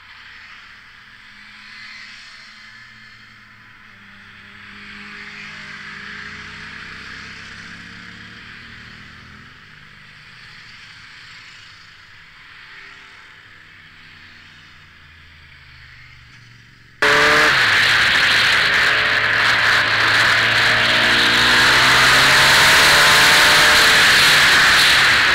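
Motorcycles passing a roadside spot, their engines heard faintly, rising and falling in pitch as they approach and go by. Well past halfway the sound jumps suddenly to loud on-board riding noise: wind rushing over the microphone with the motorcycle engine running underneath, its pitch rising and falling with the throttle.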